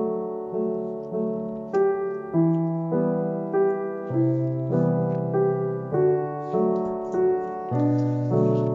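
Background piano music: a slow, gentle piece with a new note or chord about every 0.6 seconds.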